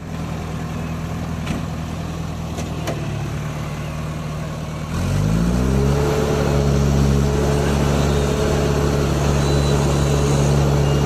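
Heavy-vehicle diesel engine running steadily, then revving up about five seconds in and holding at the higher revs, louder than before.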